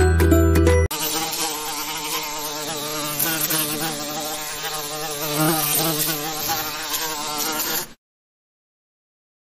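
Wasp buzzing in flight, a steady drone that wavers slightly in pitch. It begins just under a second in, after the tail of a short music jingle, and cuts off suddenly about eight seconds in.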